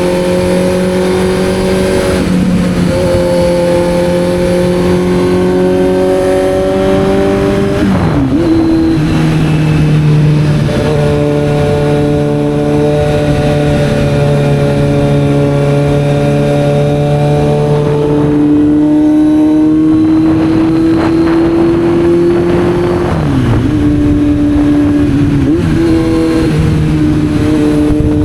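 Kawasaki Z900 inline-four motorcycle engine pulling steadily under way, its pitch creeping slowly upward. It drops sharply about eight seconds in, and again twice near the end, as gears change.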